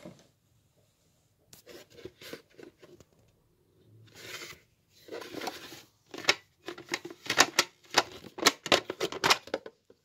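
Parts of a Bosch VitaJuice 4 juicer being handled: plastic and stainless-steel pieces knocking, scraping and clicking against each other, with a rapid run of sharp clicks and knocks in the second half.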